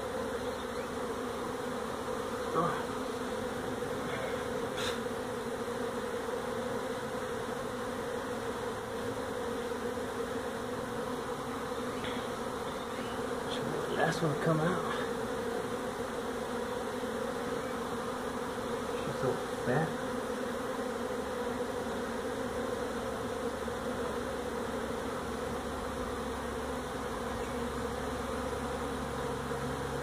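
A mass of honey bees buzzing in a steady, dense hum, the colony stirred up as its nest under the floor is opened. A few short louder sounds break in, the biggest about halfway through.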